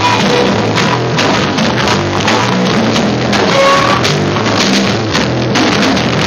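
Live jazz-grunge rock band playing loudly: a drum kit beating under electric guitar.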